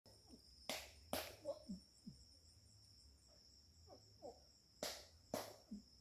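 Insects trilling steadily at a high pitch. Two pairs of sharp knocks stand out, one near the start and one near the end, along with a few short, low, falling chirps.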